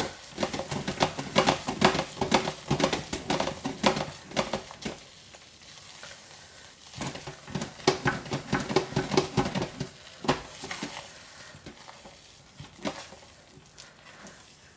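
Thick hot-process liquid-soap paste being stirred in a crock pot: dense runs of sticky scrapes and clicks in two spells, thinning to a few strokes near the end.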